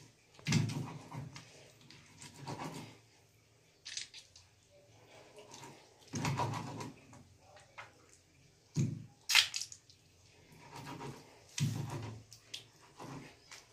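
A hand-held roller pushed and dragged over a flat silauto grinding stone, crushing tomatoes and spices into a paste: gritty scraping strokes at uneven intervals, about eight of them, with one sharp scrape the loudest just past the middle.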